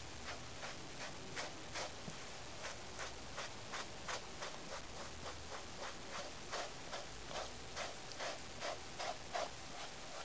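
A bristle brush stroked through a Siamese cat's fur in quick, even strokes, about two to three a second, a little louder in the second half.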